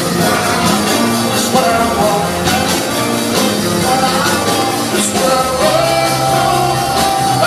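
Rhythm and blues band playing, with a singer's held vocal notes over the band.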